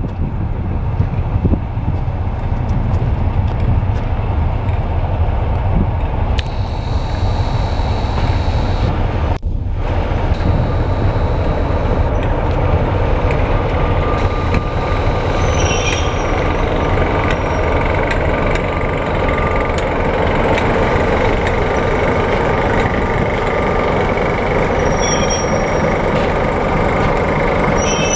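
Diesel locomotive running loudly and steadily, with a heavy low rumble. There is a brief break about nine seconds in, and from about twelve seconds on thin high tones come and go over the engine.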